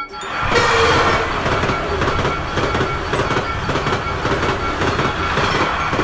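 Passenger train passing over a level crossing. Its rush of noise sets in just after the start, is loudest about a second in, then the wheels keep up a fast clickety-clack over the rails.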